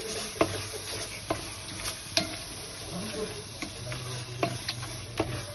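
A ladle stirring a large pot of biryani masala (onion, tomato, ginger-garlic paste, spices and curd) frying in oil: a steady sizzle with irregular sharp knocks and scrapes of the ladle against the pot. The masala is being stirred until the oil separates from the curd.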